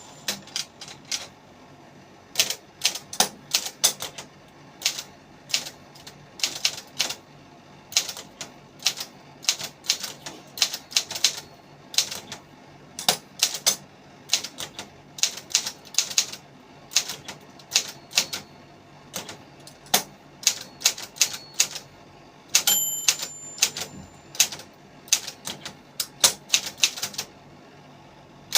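Brother 562TR typewriter being typed on: irregular runs of sharp key strikes with short pauses between words. Near the end the end-of-line bell rings once, followed by a carriage return.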